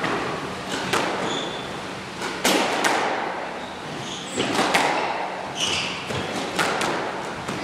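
Squash ball being struck by rackets and hitting the court walls in a rally: a string of sharp, irregularly spaced cracks, each ringing briefly in the enclosed court. Short high squeaks of court shoes on the wooden floor come in between the shots.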